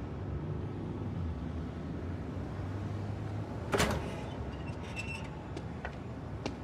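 Low, steady rumble of a car engine, with a car door shutting with a single sharp thud a little under four seconds in, followed by a few faint clicks.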